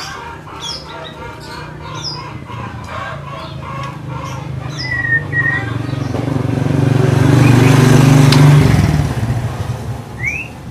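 Small caged songbirds chirping and whistling, then a motor vehicle's engine approaching and passing close. The engine grows louder over several seconds, drowns out the birds around eight seconds in, and cuts off suddenly. Bird chirps return near the end.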